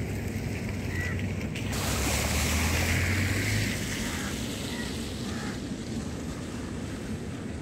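Outdoor ambience led by wind on the microphone, a steady low rumbling hiss that swells louder for about two seconds near the start and then settles.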